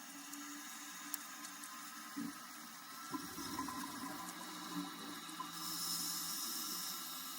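Underwater ambience picked up by a camera in its housing: a faint steady rush of water with scattered small clicks and a few louder swirls of moving water.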